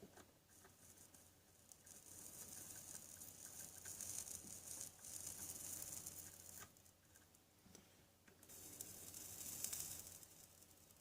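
Faint sizzling of flux as a soldering iron tins the stripped copper wire ends, in two spells of a few seconds each.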